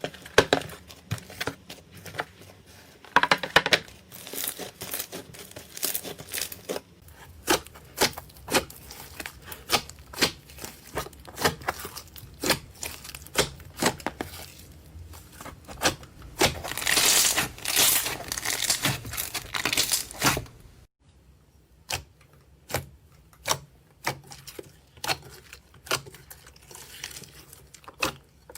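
Slime being squeezed and poked by hand, making a run of sharp pops and clicks with a longer stretch of crackling a little past halfway. About three quarters through the sound cuts off abruptly and quieter clicking picks up again.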